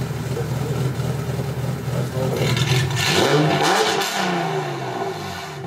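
BMW E30's swapped-in 3.5-litre M30B35 straight-six idling through its W-Performance exhaust, revved once about two and a half seconds in, then settling back to idle.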